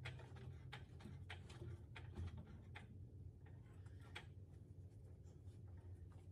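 Hydraulic floor jack being pumped by its handle, giving a series of faint clicks as it lifts a semi truck's suspension walking beam, over a steady low hum.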